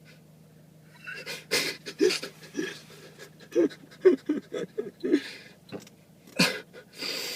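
A man sneezing over and over in quick succession, about a dozen short, sharp sneezes and gasps starting about a second in, ending in a longer hissing breath. It is a sneezing fit that he says he can't help, put down to Tourette's.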